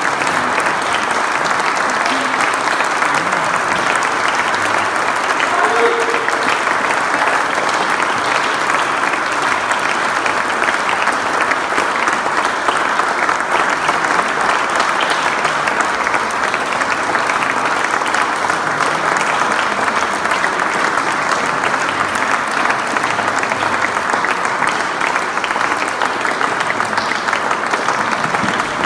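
Audience applauding steadily with continuous dense clapping.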